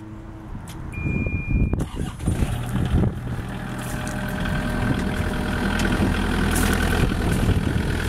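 A single steady electronic beep from the Kubota KX121-3 mini excavator, then its diesel engine cranks and starts about two seconds in and keeps running, growing steadily louder.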